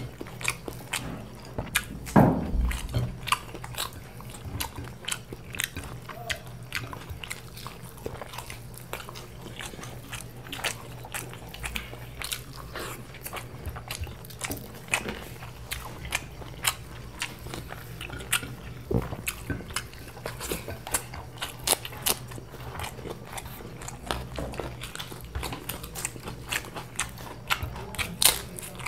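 Close-miked chewing and biting of mughlai paratha eaten by hand: a steady stream of small wet smacks and crunchy clicks, with a louder thump about two seconds in, over a faint low hum.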